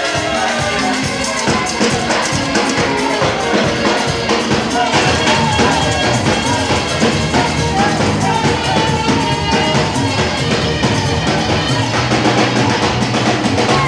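Loud gospel band music with a drum kit keeping a steady beat.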